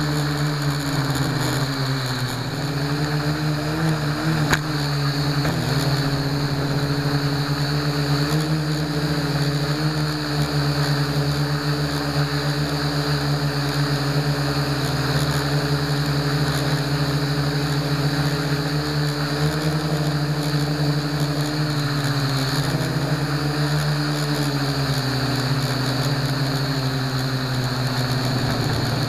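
Blade mQX quadcopter's four electric motors and propellers whirring steadily, heard up close from a camera mounted on the frame. The pitch wavers a few seconds in and again near the end as the motors change speed.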